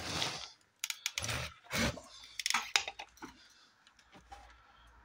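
Handling noise from a phone being set down and moved about while filming: a run of clicks, knocks and scrapes for the first three seconds, then only a few faint clicks.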